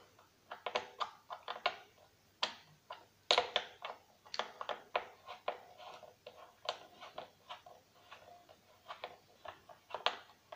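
Irregular light clicks and taps of a hand tool working at the rubber feet screwed into the wooden base of an old Sony record deck.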